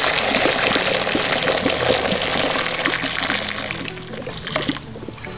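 Hot blanching water poured out of a pot into a sink, splashing and running down the drain, tailing off about four seconds in.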